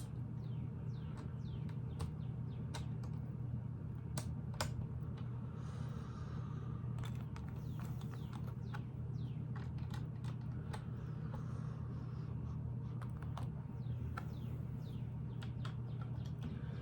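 Lego pieces clicking as they are handled and pressed into place, in scattered, irregular small clicks over a steady low hum.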